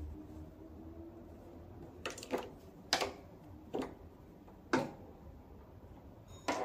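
Handling noises from a fabric top being turned over and held up by hand: about six brief rustles or knocks at irregular intervals.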